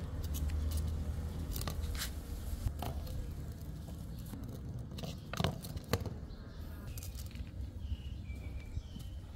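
Cardboard tube knocked and rolled across a tiled floor by a playing cat: scattered light knocks and scrapes, two sharper ones about halfway through. A low rumble fades out in the first second, and a few faint high chirps come near the end.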